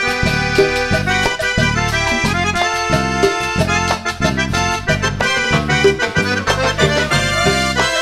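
Live band playing an instrumental passage between sung verses of a Latin dance song: bass, a sustained lead melody and a steady beat.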